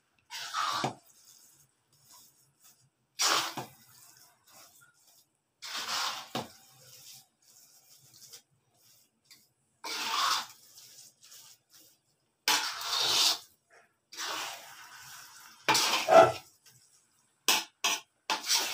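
Spatula stirring and folding sticky rice through thick coconut-milk and sugar syrup in a pan, cooking biko. Each stroke is a short wet scrape, one every two to three seconds, with a quick pair near the end.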